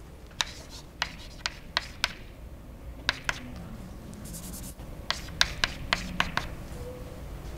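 Chalk writing on a blackboard: a series of sharp taps in small clusters as each stroke lands, with a brief scratchy hiss near the middle.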